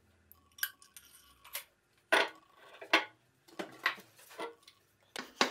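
Steel drill-press spindle and quill sleeve clinking and knocking against each other and the cast-iron table as the spindle is slid into the quill: a series of sharp, irregular metallic clinks, the loudest about two seconds in.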